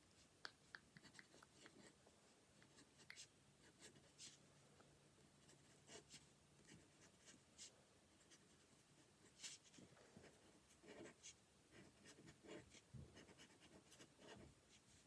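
Faint scratching and short ticks of a black marker drawing on paper.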